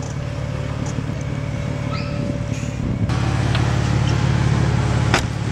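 BMW M4's twin-turbo straight-six idling through a Fi Exhaust valved cat-back system, a steady low exhaust note that gets louder about three seconds in. A sharp click near the end.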